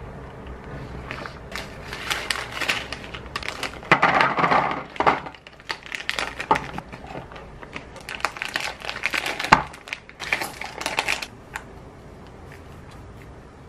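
Thin plastic food packets crinkling and rustling as they are handled, torn and emptied into a paper cup, with small knocks and clicks as the contents drop in. Two spells of handling, the loudest about four seconds in.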